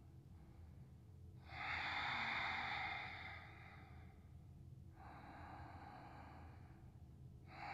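A woman breathing slowly and deeply while holding a yoga stretch: two long, airy breaths, one about a second and a half in and a softer one about five seconds in.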